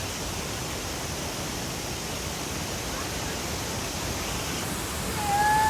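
Steady rush of falling water, like a waterfall, an even roar with no breaks. A voice calls out near the end.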